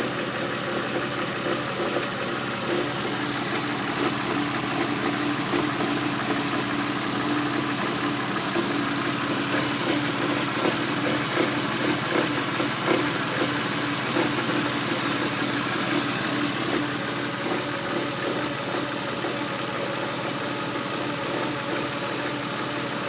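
A 2000 Porsche Boxster S's 3.2-litre flat-six engine idling steadily, with a strange noise in it that the owner cannot identify.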